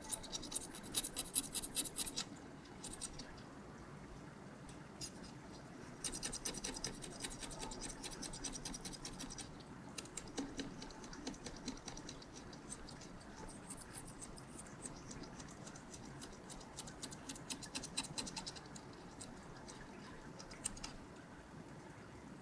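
A scraper blade scratching limescale deposits off aquarium glass at the waterline, in three bouts of quick back-and-forth strokes with pauses between.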